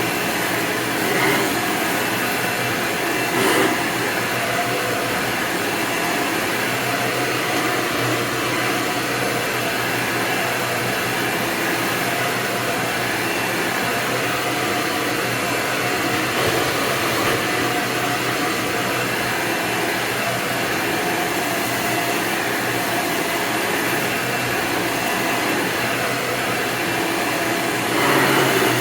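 Hoover Elite upright vacuum cleaner running steadily, with brief louder swells about three and a half seconds in and again near the end.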